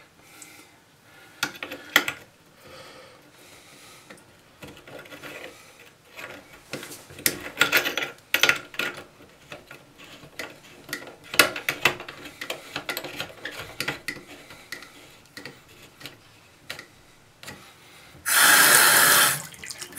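Small metallic clicks and scraping as a quick-connect adapter is threaded by hand onto a bathroom faucet spout. Near the end the tap is turned on and water rushes from it for about a second and a half, the loudest sound here.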